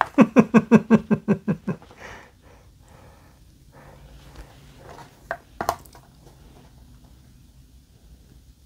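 A man laughing: a quick run of about a dozen 'ha's in the first two seconds, trailing off into breathy chuckling. About five and a half seconds in come two short clicks as a plastic blister pack is handled.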